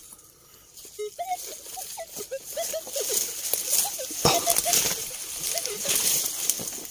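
Rustling and trampling through tall, dense grass, growing louder about a second in. Short chirping tones run through it.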